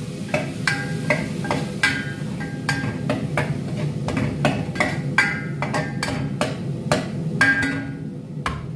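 Metal ladle stirring ground beef in a stainless steel pot, clinking against the pot's side and rim about two or three times a second, some knocks ringing briefly, over a steady low hum.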